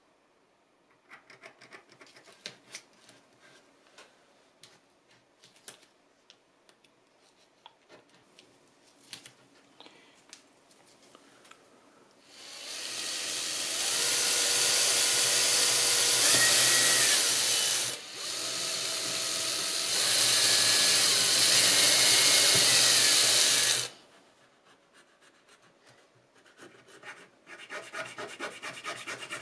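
Green Bosch cordless drill drilling into a glued block of coloured pencils, running in two stretches of about five seconds each with a brief stop between them. Before the drilling there are faint scratches and taps of a pencil marking the work, and near the end there are short rasping strokes as the pencil block is worked by hand.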